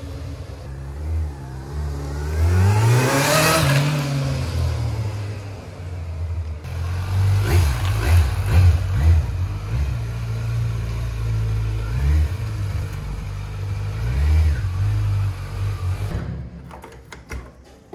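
Kawasaki Z900's 948 cc inline-four running on its stock exhaust. Early on it pulls away under throttle with the pitch rising and then falling, then it idles between several short throttle blips, and near the end the engine sound drops away.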